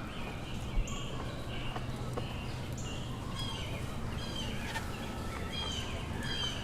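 Small birds chirping in repeated short, high calls over a steady low outdoor hum.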